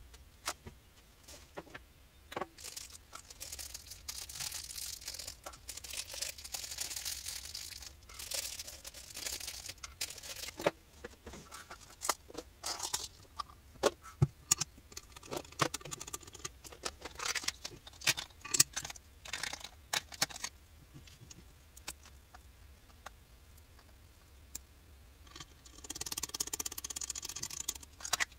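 Small parts handled on a workbench: many sharp clicks as small metal spring snap-fastener pieces and tools are picked up and set down, with several stretches of rustling and rummaging. The clicks thin out for a few seconds past the middle, and a last burst of rustling comes near the end.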